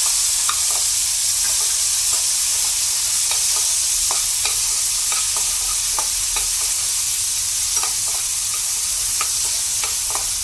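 Tomatoes and small onions frying in hot oil in a kadai: a steady sizzle with scattered light clicks and pops as they are stirred and sautéed.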